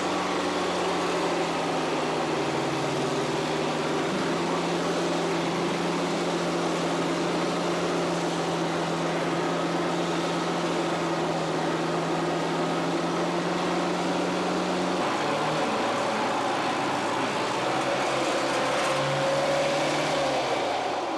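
Pressure washer running: a steady motor hum under the hiss of the spray, the hum changing pitch about fifteen seconds in.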